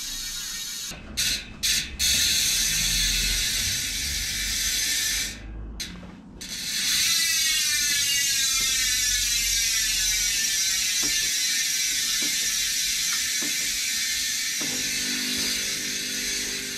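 Mountain bike rear freehub ratchet buzzing as the wheel spins freely. It cuts out briefly a few times in the first six seconds, then runs on with its click rate gradually slowing.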